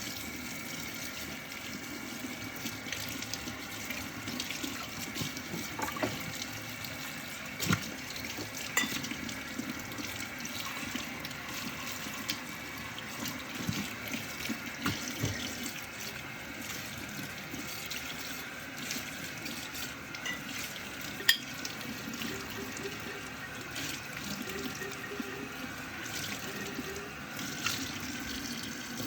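Tap water running into a kitchen sink during hand dishwashing, with occasional sharp clinks and knocks of dishes, the loudest about two-thirds of the way through.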